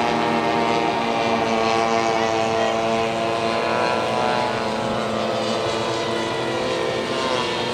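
Large-scale RC Cub floatplane's engine and propeller running steadily in flight, its pitch wavering slightly as the plane banks and passes.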